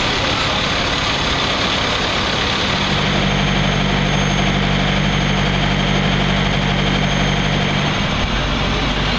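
Heavy diesel vehicle engines idling: a steady hiss and rumble, with a deeper engine drone that comes in about three seconds in and shifts pitch near the end.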